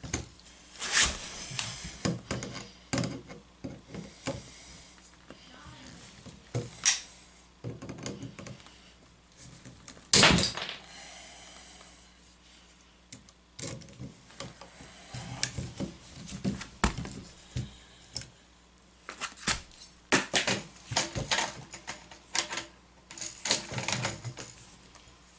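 Hand tools clicking and knocking irregularly against metal plumbing fittings as they are worked loose, with one loud knock about ten seconds in and a quick run of knocks near the end.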